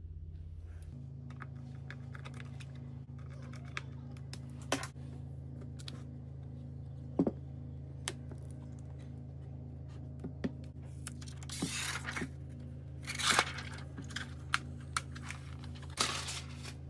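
Small clicks and taps from a MacBook Pro and tools being handled, with a few brief rubbing scrapes as the laptop is turned over and its lid opened, over a steady low hum.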